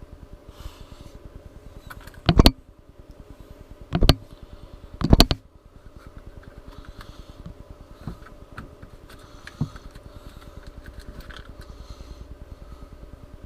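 Handling noise while fishing lures are picked up and sorted in a tackle box: three loud knocks about a second and a half apart, then a couple of faint clicks, over a steady low hum.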